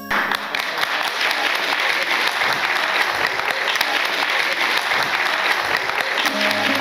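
Audience applauding, a dense clapping that starts suddenly as the song stops; music comes back in near the end.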